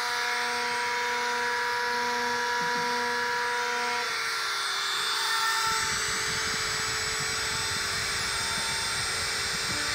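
DIY CNC PCB drilling machine running, its motors whining at steady pitches that shift about 4 seconds in and again near the end. A rougher, low rattling noise joins from about 6 seconds on.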